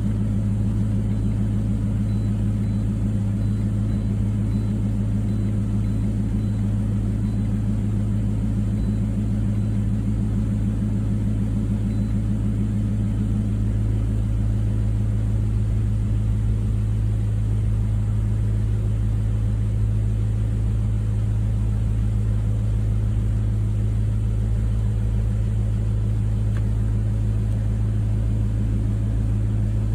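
2004 Pontiac GTO's 5.7-litre LS1 V8 idling steadily, with its misfire on cylinders 3 and 4 cured by new spark plugs and a replacement for the burned, cracked #4 plug wire.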